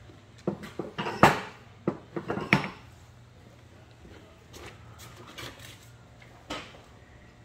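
Hard machine parts clattering against a stainless-steel cleaning cart: a quick run of sharp knocks in the first few seconds, then a few lighter knocks, over a low steady hum.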